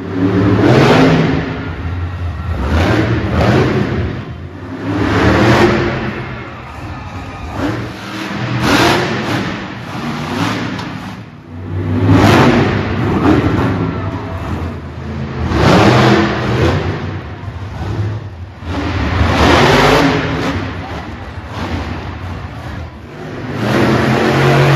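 Monster truck engines revving hard in repeated surges, several seconds apart, as the trucks drive up onto and over cars to crush them.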